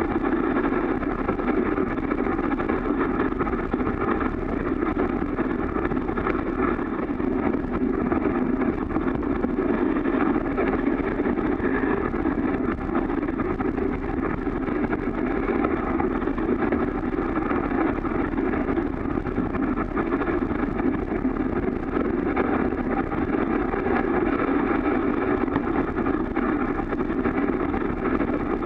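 Steady, muffled rushing noise of a dog sled running on a snowy trail behind a four-dog Siberian husky team: runners sliding over snow and air rushing past, heard through the camera's waterproof case.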